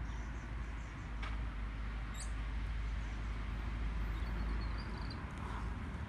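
Outdoor background sound: a steady low rumble with a faint haze over it. There is one faint click about a second in and a couple of faint short high chirps later on.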